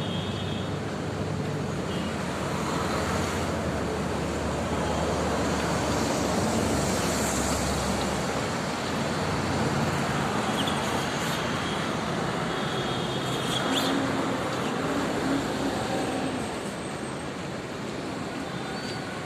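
Steady road traffic noise, swelling and easing as vehicles pass, with a few brief high-pitched tones.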